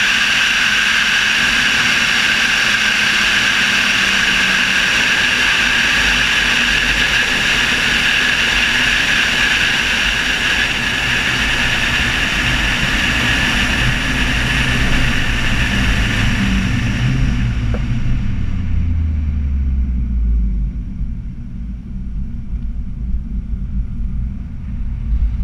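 Nissan 200SX S14a with a turbocharged SR20DET engine running at high speed, a loud steady rush of wind and engine with a high whine over it. About two-thirds of the way through the rush fades as the car slows, leaving a lower engine note that drops in pitch.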